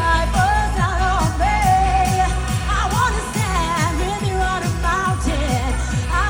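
Eurodance-style pop music performed live over a concert PA: a steady kick-drum beat, quick falling bass notes, and a high melody with singing that bends in pitch.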